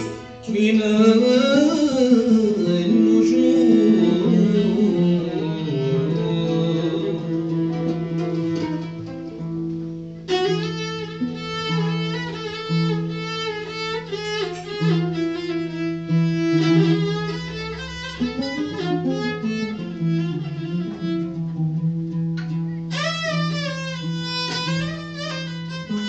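A violin held upright on the knee plays a melody in Andalusian malouf style, with sliding notes. An oud plucks along with it from about ten seconds in.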